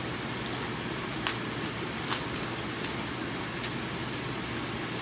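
Laminar flow hood blower running steadily with a low hum, with a few light clicks about a second apart as a plastic grow bag is handled.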